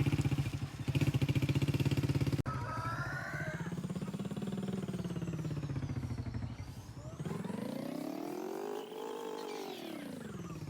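A vehicle engine running, its pitch rising and falling slowly several times, with an abrupt change in the sound about two and a half seconds in.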